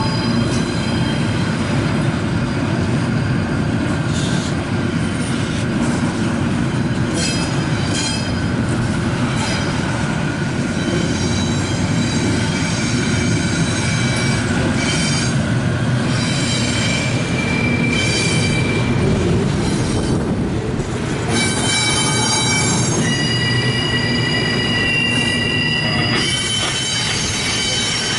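CSX intermodal train's cars rolling past with a steady low rumble, their wheels squealing in several high, shifting tones that come and go. The squeal is wheel flanges grinding through the curve off the wye onto the main track.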